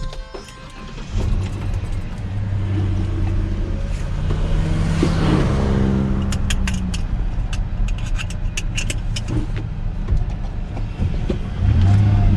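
Pickup truck engine running, rising in pitch as it accelerates about five seconds in, with sharp clicks at the start and scattered light ticks later.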